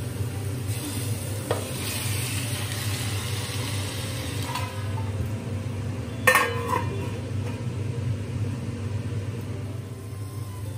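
Marinated chicken sliding from a steel bowl into a hot steel pot of fried onions and sizzling, with small metal knocks against the pot. About six seconds in, a steel lid clanks down onto the pot and rings briefly. A steady low hum runs underneath.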